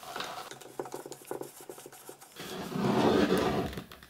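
Handling of a Radiac Survey Meter No 2's metal case: a run of small clicks and taps, then a louder scraping rub for about a second and a half as the case is turned over on a wooden table.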